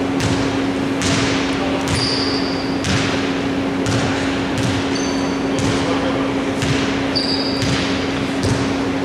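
A basketball being dribbled on a hardwood court, about one bounce every two-thirds of a second, each bounce echoing in a large sports hall. Sneakers give two short high squeaks on the floor, and a steady low hum runs underneath.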